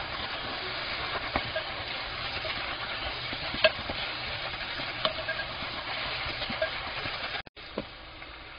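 Diced Spam, onion, scallion and chilies in a gochujang-soy seasoning sizzling in a stone-coated frying pan while a wooden spatula stirs them, with a few sharp knocks of the spatula against the pan. The sizzle cuts out briefly near the end and comes back quieter.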